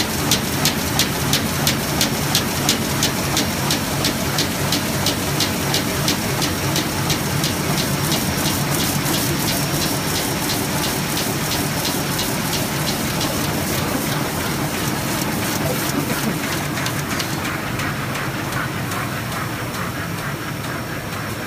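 Komori Lithrone LS 40 sheetfed offset press running: a steady mechanical rush with a rapid, regular clicking over it, several clicks a second. The clicking fades away in the last few seconds.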